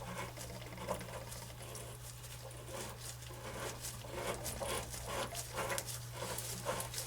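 Irregular light clicks, taps and rattles of hand tools and metal pipe fittings being handled, over a steady low hum.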